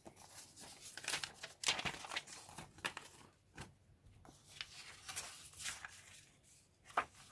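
Paper rustling and crinkling as a sheet of waterslide decals and the kit's instruction sheets are shuffled, lifted and turned over by hand, in irregular bursts with a sharper rustle near the end.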